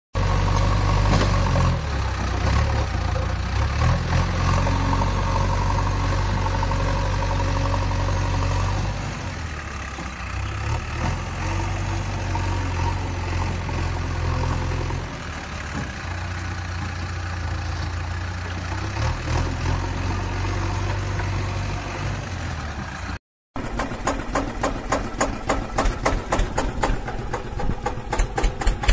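Tractor diesel engine running with a steady low hum that dips and swells a few times. After a brief cut about 23 seconds in, it comes back as an even thudding beat that quickens near the end.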